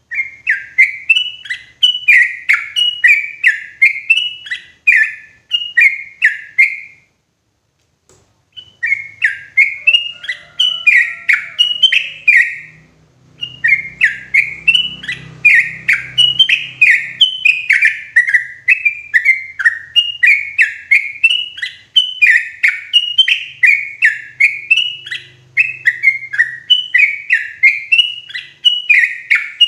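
Yellow-vented bulbul (trucukan) singing loud and clear: fast, unbroken runs of short repeated notes, with one pause of about a second and a half a quarter of the way in.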